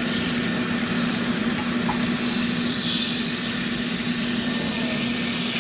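Flour-dredged corvina fillets shallow-frying in hot oil in a nonstick pan, a steady sizzle.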